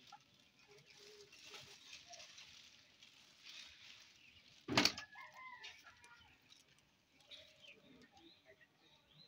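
Chickens clucking faintly in the background, with one sudden loud sharp slap about halfway through.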